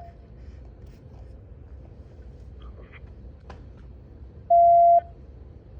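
Police radio scanner audio: a loud, steady, single-pitched beep lasting about half a second, about four and a half seconds in, over faint radio hiss with a couple of faint clicks.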